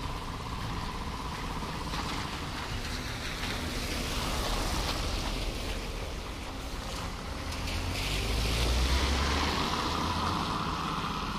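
Trolleybus and car tyres hissing and splashing through slush and standing water as the vehicles pass close by. The noise swells near the end as a car goes by, adding a low engine rumble.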